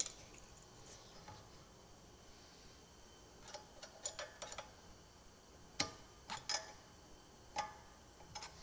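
Scattered light metallic clicks and taps of a nut and bolt being undone by hand and the axe grinding jig's parts turned over, starting a few seconds in.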